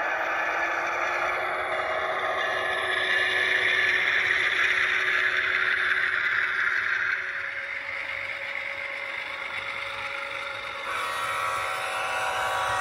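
An HO-scale model freight train runs past: the freight cars' wheels clatter steadily on the track, mixed with the ES44AC model's LokSound V5 decoder playing diesel locomotive sound through its small speaker. The sound drops in level about seven seconds in, and a steadier tone comes back near the end.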